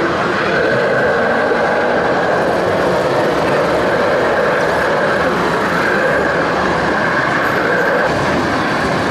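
Steady mechanical running noise with a whine that wavers slightly in pitch, as from a machine's motor and gears.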